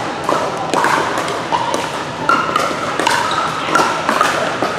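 Pickleball paddles hitting the hard plastic ball in a doubles rally: a string of irregular sharp pocks, some from neighbouring courts, over background chatter in a large gym.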